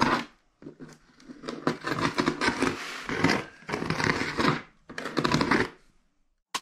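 Plastic courier packaging crinkling and rustling in several irregular bursts as the parcel is handled to be unboxed.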